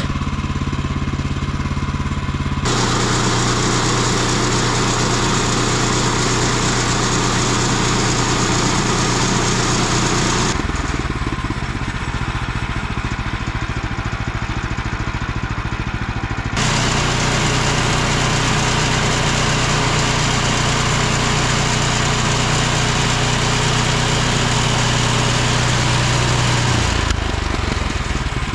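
Portable bandsaw mill running: its small gas engine holds a steady hum while the band blade saws through a log, adding a loud hiss. The sawing hiss drops out for several seconds in the middle, leaving the engine alone, then returns and stops near the end.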